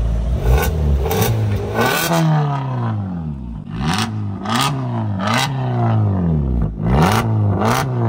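Car with an aftermarket valvetronic (valved) exhaust being revved while parked. The throttle is blipped over and over, so the exhaust note rises and falls about once a second, with sharp cracks between the revs.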